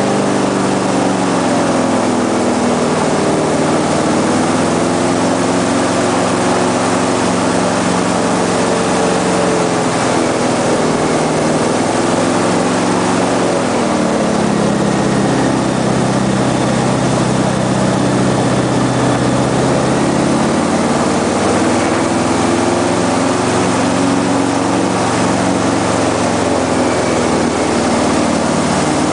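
Airboat engine and air propeller running loudly, its pitch dropping twice as the throttle eases back and climbing again each time.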